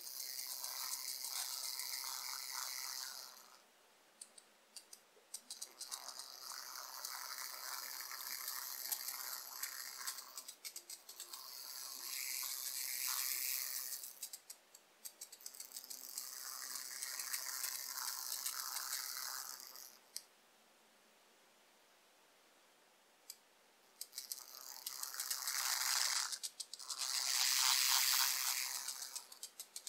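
Tiny 4.1 mm DC drive motor and gear train of a 1/87-scale micro RC car whirring with a high-pitched rattle in runs of a few seconds. It stops several times, with scattered light ticks in the pauses.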